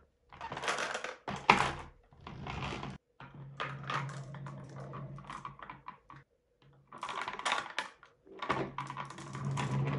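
Plastic toy dump trucks pushed by hand across a tabletop: the wheels roll with a low rumble while the marbles in the plastic dump beds rattle and click. It comes in several pushes with short pauses between, with a sharp knock about one and a half seconds in.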